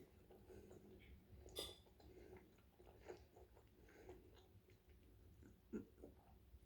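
Faint close-up chewing of a mouthful of curry chicken and pasta, with scattered soft mouth clicks.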